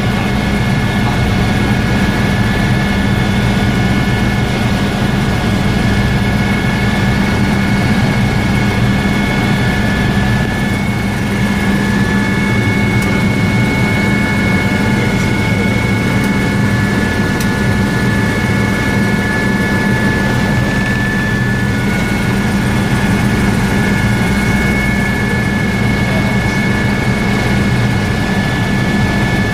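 Helicopter in flight, heard inside the cabin: a steady low drone from the rotor and engine with a constant high-pitched whine over it.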